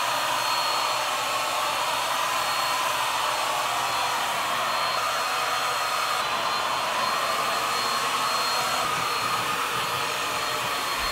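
Handheld electric paint sprayer running steadily while spraying primer, a high whine over a rushing hiss.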